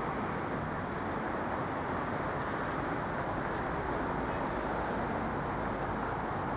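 City street traffic noise: a steady, even rumble of passing vehicles, with no single event standing out.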